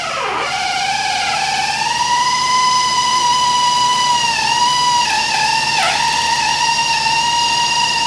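Pneumatic right-angle air drill drilling into a 5.7 Hemi's steel crankshaft snout. It rises to a steady high whine over the first two seconds, then dips briefly in pitch twice, about four and a half and six seconds in, as the bit takes load.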